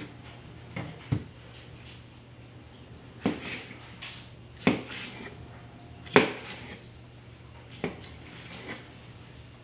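A 9-inch Bubba Blade stiff fillet knife chopping down through a king mackerel's body into steaks, the blade knocking sharply against the table as each cut goes through. About seven irregular knocks, the loudest about four and a half and six seconds in.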